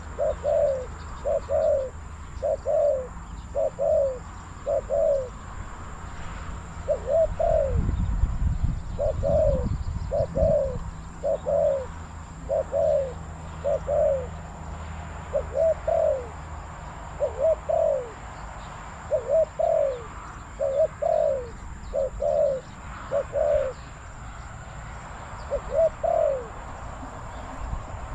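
Spotted dove cooing in repeated short phrases of two or three notes, about one phrase a second, with a brief pause a little over five seconds in. A low rumble sounds about eight to ten seconds in.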